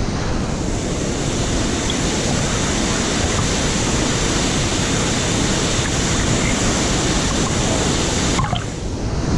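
Steady rushing noise of a waterfall pouring into its plunge pool, heard up close. The hiss thins abruptly about eight seconds in.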